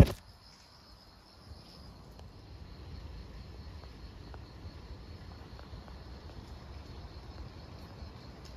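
Steady high-pitched buzz of insects in the vegetation, over a low rumble. A single brief knock comes at the very start.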